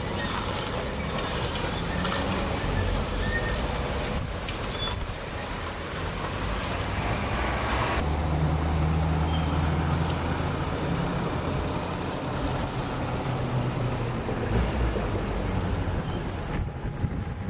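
Street traffic noise with trolleybuses moving along the road. A deep vehicle rumble starts abruptly about halfway through and runs for a few seconds before easing off.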